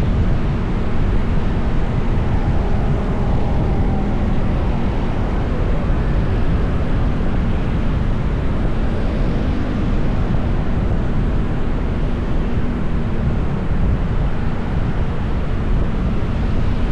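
Steady, loud road-traffic rumble with a deep, even roar of the kind that wind on a moving action camera's microphone gives.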